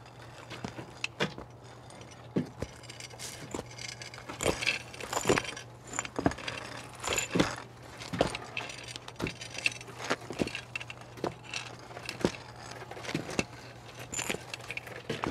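A run of irregular light clinks and knocks, like small hard objects being handled, over a steady low hum.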